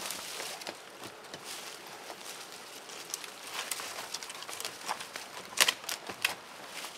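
Dry fallen leaves rustling and crackling underfoot while dead sticks are handled and leaned into a stick-wall shelter frame, with a few sharp wooden knocks between five and six and a half seconds in.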